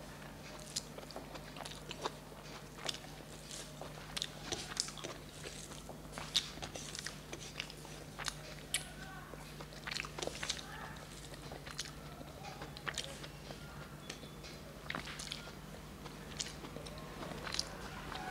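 Close-up eating: chewing and biting on a mouthful of rice and fried greens, with many short, irregular wet mouth clicks and smacks. A steady low hum runs underneath.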